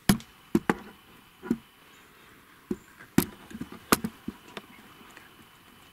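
Irregular sharp snaps and cracks of dry sticks and twigs breaking in forest brush, about nine in the first five seconds, the loudest right at the start and about three seconds in.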